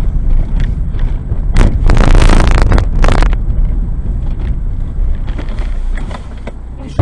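Car interior heard through a dashcam: steady low road and engine rumble with wind noise on the microphone. A louder rough, hissing rush comes between about one and a half and three seconds in.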